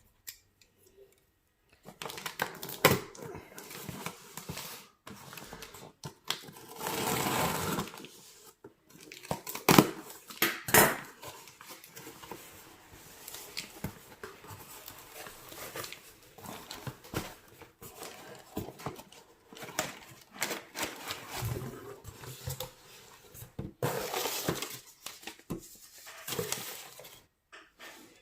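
Product packaging being handled and opened by hand, with irregular crinkling and tearing and now and then a sharp click or knock. The longest stretch of crinkling comes about seven seconds in.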